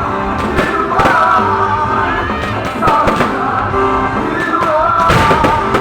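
Loud music with singing voices, cut through by irregular sharp bangs of fireworks, several in quick succession about five seconds in.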